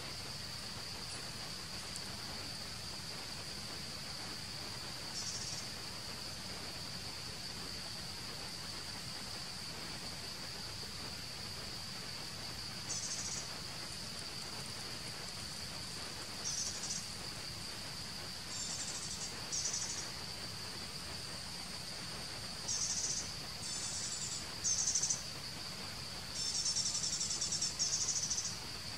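Steady high-pitched drone of insects calling, with short, louder buzzy bursts of a higher insect call breaking in now and then and coming more often toward the end.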